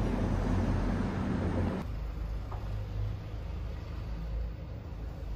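Steady low outdoor rumble with a louder hiss over it that cuts off abruptly about two seconds in, leaving a quieter rumble.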